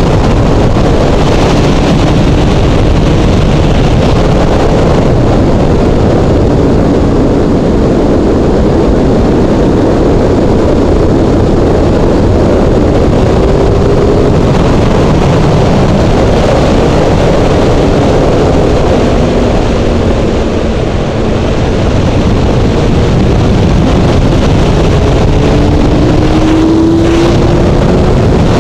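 Honda CBR600 sport bike's inline-four engine running at road speed under a heavy rush of wind on the microphone, its pitch rising a couple of times as the rider accelerates, most clearly near the end.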